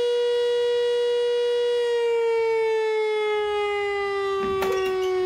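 Fire station alarm siren sounding the call-out for volunteer firefighters: one steady wailing tone that begins slowly falling in pitch about two seconds in as it winds down. A few knocks and clatter of gear come in near the end.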